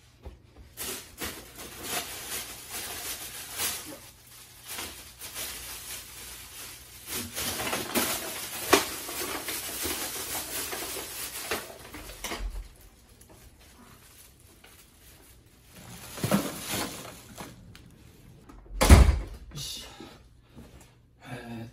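Thin plastic shopping bags rustling and crinkling as they are rummaged through, for about eleven seconds. Later come a few knocks and one heavy thump.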